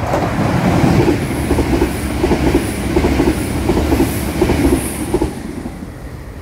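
A Northern Ireland Railways CAF diesel multiple unit passing through the station at speed without stopping. It makes a low running rumble with a rhythmic wheel clatter, about three beats a second, that dies away after about five seconds.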